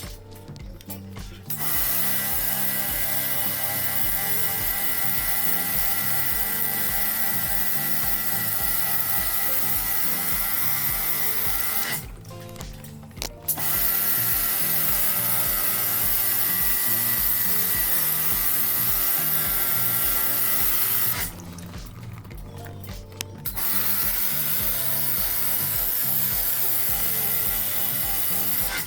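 Small electric pressure washer running and spraying, with a steady high whine over a loud hiss. It runs in three long stretches and cuts off twice for a second or two, near the middle and again about three quarters in.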